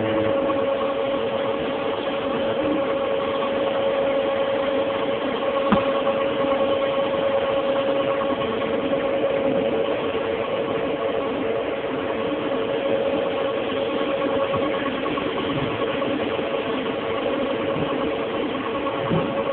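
Dewatering screw press running steadily: a constant mechanical hum with an unchanging tone through it.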